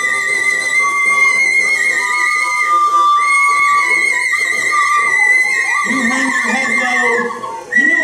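Experimental ensemble music of violin and recorder holding long, high, wavering notes in imitation of bird calls. Lower, voice-like sounds join about six seconds in.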